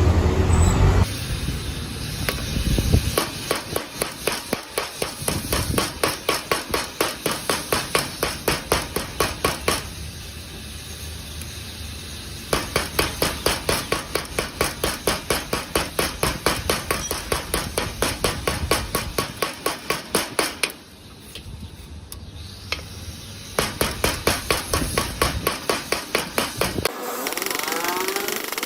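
A hammer striking metal in rapid, even runs of blows, about four a second, with short pauses between the runs. A loud low rumble cuts off about a second in.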